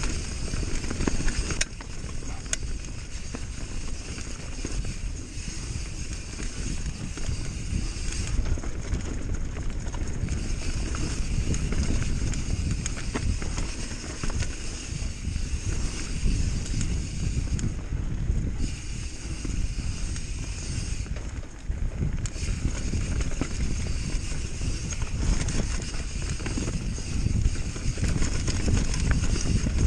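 Bird Aeris mountain bike ridden fast down a dirt trail: a constant rumble of tyres and wind on the microphone, with frequent small knocks and rattles from the bike.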